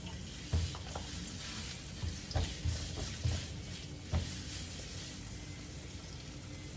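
Ground beef frying in hot oil in a pan with a steady sizzle, stirred with a utensil that knocks against the pan about five times in the first two thirds.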